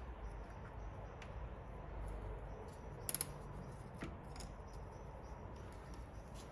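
Faint clicks of a bicycle chain being handled and wrapped round the sprockets, with a sharper double click about three seconds in.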